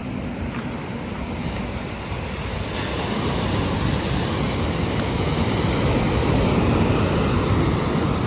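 Ocean surf washing onto the beach, a steady rush that swells louder about three seconds in, with wind on the microphone.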